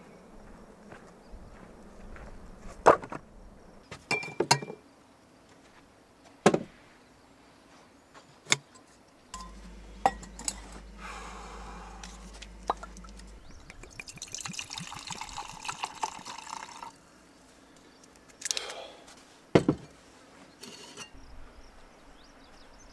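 Several sharp knocks and clinks, then whiskey poured from a bottle into a camp mug for about three seconds.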